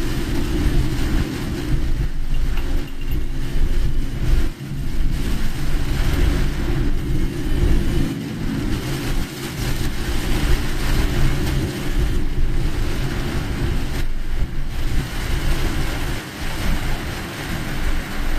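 Steady road and engine noise heard from inside a car driving through heavy typhoon rain, with the rain and the spray off the tyres adding a continuous hiss.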